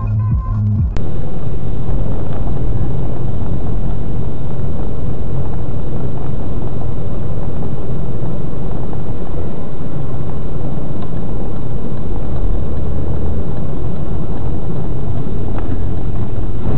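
A second of electronic music cuts off, then loud, steady vehicle rumble with road and wind noise, as heard from a dash camera in a moving car.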